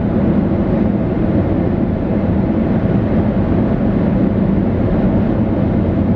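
Steady low road rumble inside a moving car's cabin, from the tyres and engine.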